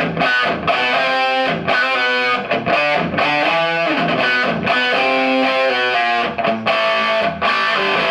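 Electric guitar played live through a 1986 Marshall JCM800 4210 50-watt tube combo: chords and riffs in short phrases with brief breaks between them.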